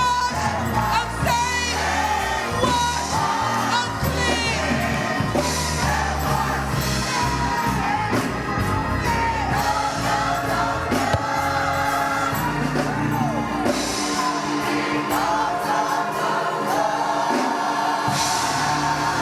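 A gospel song sung by voices, possibly a choir, with a band of bass and drums playing underneath. The music carries on steadily.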